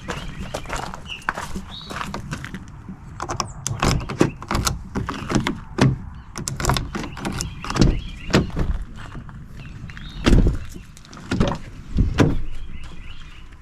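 A pickup truck's door and cab being worked while tools are searched for: a series of knocks, clunks and rattles, the two loudest thuds about ten and twelve seconds in.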